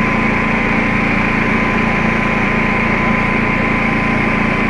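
Predator 11,500-watt inverter generator's gasoline engine running steadily, with a thin steady whine over the engine noise.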